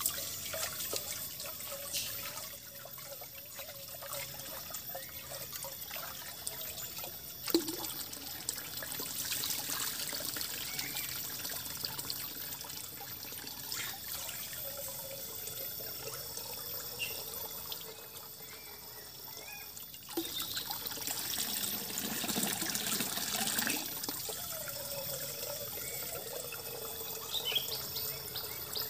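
Water running and trickling steadily, getting louder for a few seconds about two-thirds of the way in, with a sharp knock about seven seconds in.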